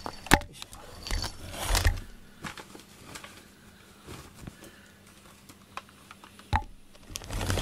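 Handling noises: a sharp click about a third of a second in, a rustle a little later, then faint scattered ticks and another click near the end.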